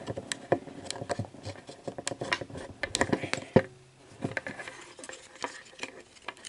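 Scattered light clicks and metal taps from a Betamax video head drum motor being handled by hand while its magnet rotor is pried up. The loudest knocks come about three seconds in.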